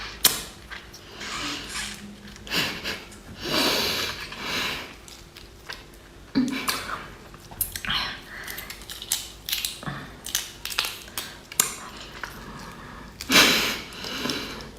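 Close-miked sucking and slurping at a tiger prawn, repeated strong sucks mixed with small clicks and crackles of the shell, the meat held too tight in the shell to come out.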